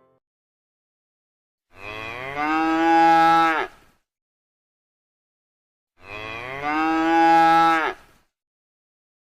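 A cow mooing twice: two long calls of about two seconds each, a few seconds apart, each swelling louder before it stops.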